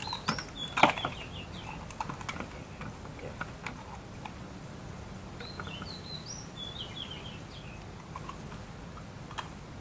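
Small birds chirping in short, high phrases near the start and again around six to seven seconds in. Under them are a few scattered light knocks and taps, the loudest a sharp knock about a second in.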